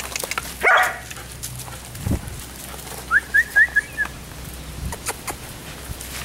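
A dog gives one sharp bark just under a second in. Around three seconds in comes a quick run of four short, high chirps, with small scattered clicks throughout.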